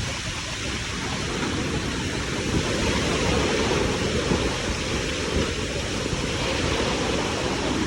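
Steady, even rush of a heavy rainstorm, rain and wind together.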